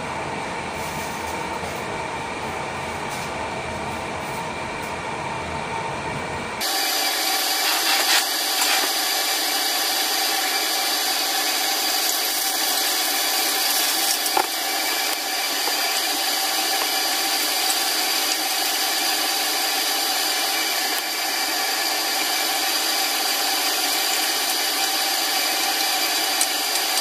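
Steady mechanical whir of a kitchen range-hood fan, with several fixed tones in it. About six and a half seconds in it changes abruptly from a duller rumble to a brighter hiss. A single knock comes about fourteen seconds in.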